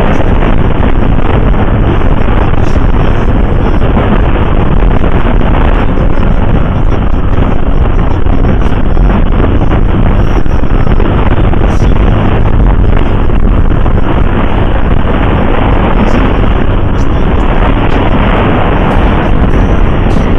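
Steady, loud wind rush over the microphone of a camera on a moving Honda scooter at about 56 to 68 km/h, with road and engine noise underneath.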